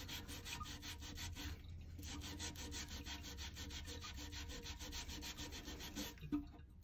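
Faint scrubbing of a rubber-gloved hand against the porcelain wall of a toilet tank, rubbing off rust stains: quick, even strokes, several a second, that stop about six seconds in.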